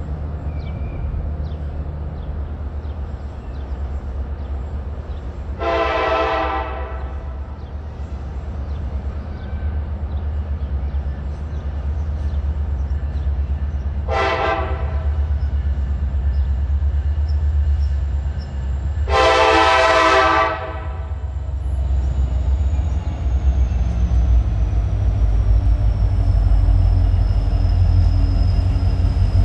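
Diesel locomotive horn on NYS&W SD70M-2 4066 sounding three blasts: one about a second and a half long, a short one, then a longer one of about two seconds, the loudest. Under it the steady low rumble of the train's diesel engines grows louder as the locomotives draw near and pass.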